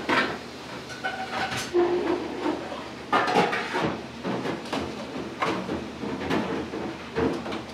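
Warigo soba noodles being slurped: a series of short hissing slurps, six or seven pulls a second or so apart.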